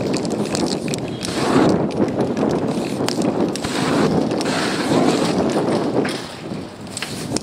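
Spray paint set alight on a canvas: flames whoosh across the wet paint in several swells, with the hiss of an aerosol can and a few sharp clicks.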